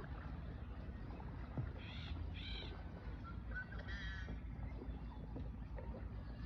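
Bird calls over a low steady rumble of wind and water: two short harsh calls about half a second apart, then a longer wavering call a couple of seconds later.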